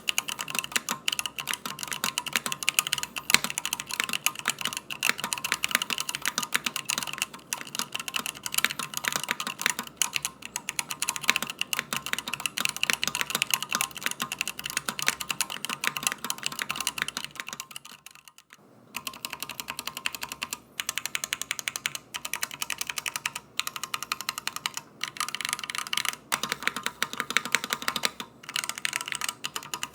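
Fast, continuous typing on a Drop SENSE75 mechanical keyboard: a dense stream of key clacks, with a brief pause a little past halfway.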